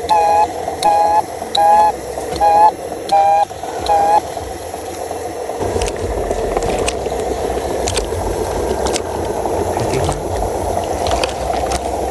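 RC dump truck's electronics beeping: six short two-tone beeps about every 0.7 s, like a reversing alarm. They stop about four seconds in. From about six seconds in, the truck's drive runs steadily under load, with scattered light clicks, as it tows the sunken toy truck out of the water pit by a chain.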